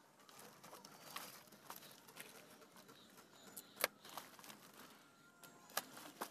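Faint rustling and crinkling of a courier packet as a plant sapling is pulled out of it, with a few sharp clicks, the loudest about four seconds in and two more near the end.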